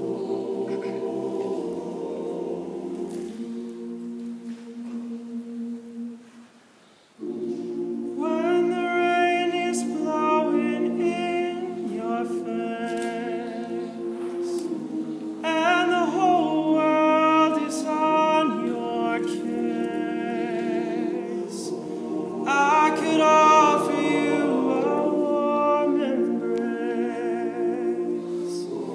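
All-male a cappella group singing in close harmony: low held chords fade almost away about six seconds in, then the backing voices come back in and a solo lead voice sings the melody over them.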